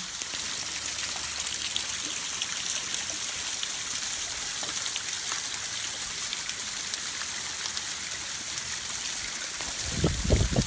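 Waterfall splashing, a steady hiss of falling water.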